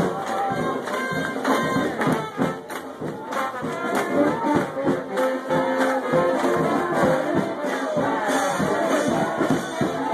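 New Orleans brass band playing second-line music: sousaphone, trombone and trumpet over drums.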